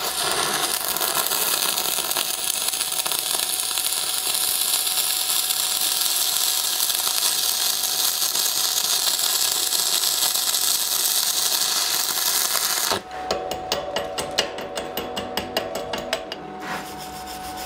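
Stick (MMA) welding with a rutile RR12 electrode at 120 amps: the arc crackles and sizzles steadily as a fillet weld is run on a steel T-joint. About thirteen seconds in the arc stops suddenly, and a run of sharp, irregular clicks follows.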